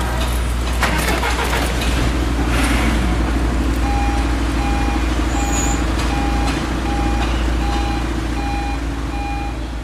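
A heavy vehicle's reversing alarm beeping at an even pace over a steady low engine drone and street noise. The beeping starts about four seconds in.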